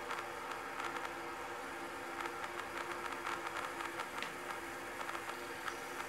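Quiet ambient rainforest soundscape made from synthesis and manipulated samples: a steady hiss with a low held drone and many small scattered ticks.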